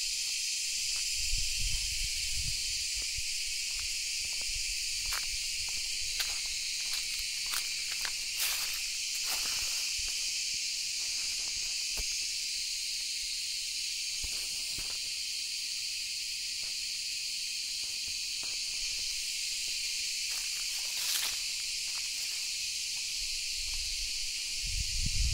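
A steady, high-pitched chorus of insects, with scattered footsteps and rustling on dry leaf litter. Low thumps come about a second in and again near the end.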